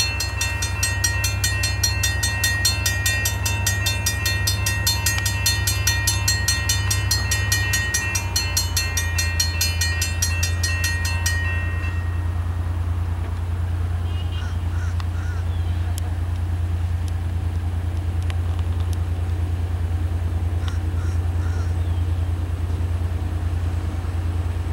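Railroad grade-crossing warning bell ringing with rapid, evenly spaced strikes, cutting off about halfway through as the crossing gates come down. A steady low rumble from the approaching CSX diesel freight locomotive runs underneath.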